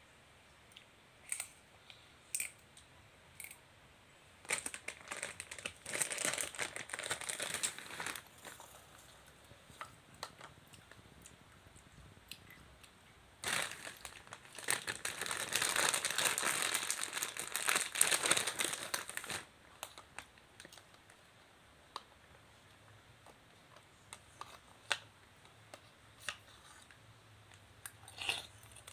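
Plastic food packaging crinkling as it is handled, in two long spells of dense crackling with scattered small clicks and taps between them.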